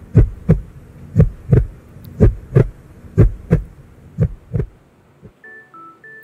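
Intro sound effect of deep paired thumps in a heartbeat rhythm, about one pair a second, which stops a little before the end. Near the end a short run of electronic beeps at changing pitches starts up.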